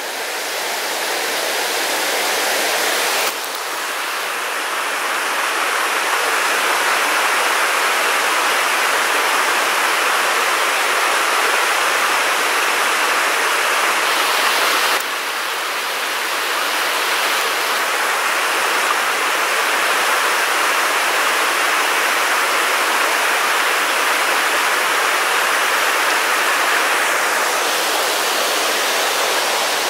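Shallow river rushing over boulders and rocks: a steady, loud rushing of white water. The level changes abruptly about three seconds in and again about halfway through.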